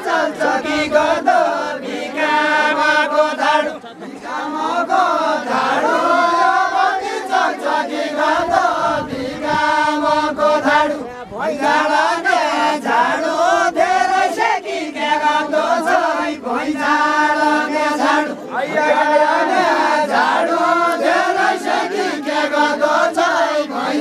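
A group of voices singing a Deuda folk song without instruments, in chanted phrases that each end on a long held note.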